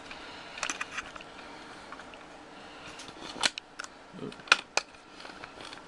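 Handling noise as the camera is repositioned: a few small clicks near the start, then sharper clicks and knocks about three and a half and four and a half seconds in.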